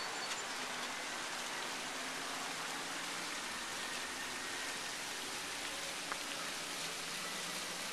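Steady, even background hiss of outdoor ambience, with a single faint tick about six seconds in.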